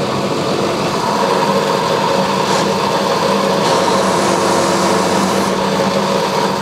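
Steady, loud hum of a motor running, with a higher tone joining about a second in.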